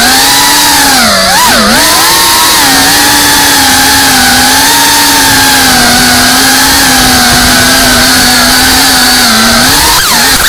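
FPV racing quadcopter's motors and propellers whining loudly, as picked up by the onboard camera, with a rushing hiss behind. The pitch dips and climbs with the throttle about a second in, holds steady through the middle, and dips and rises again near the end.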